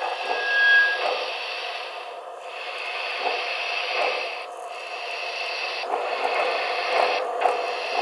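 Sound from the DCC sound decoder of a Broadway Limited HO-scale AT&SF 4-6-4 Northern model locomotive, played through its small onboard speakers as the model runs: a hissing steam sound that drops out briefly every second or two, with a short high steady tone about half a second in.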